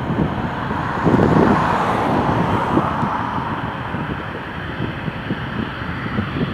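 Gusty wind buffeting the microphone over a steady rush of distant engine noise, which swells about a second in and eases off again after a few seconds.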